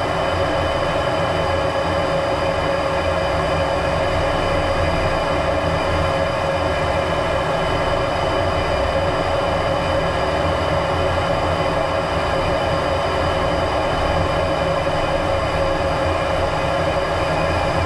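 Fighter jet engine and airflow noise heard from a camera mounted on the aircraft in flight: a loud, even rushing sound with several steady whining tones over it.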